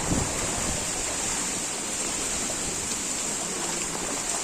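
Steady rush of water during cyclone flooding, an even hiss without breaks.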